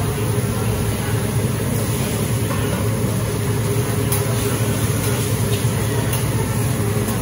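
A teppanyaki flat-top griddle sizzling as noodles and vegetables are worked on it with a steel spatula, over a steady low rumble, with a few light clicks of the spatula on the griddle.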